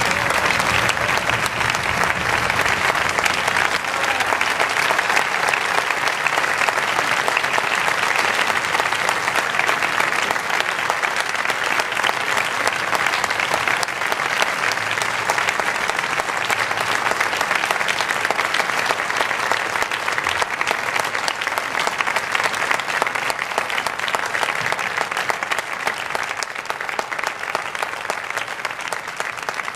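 Concert audience applauding: many hands clapping in a dense, steady patter that eases off slightly near the end.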